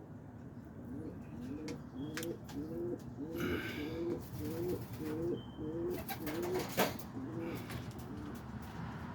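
Domestic pigeon cooing: a long run of repeated low coos, about two to three a second. A single sharp click about seven seconds in.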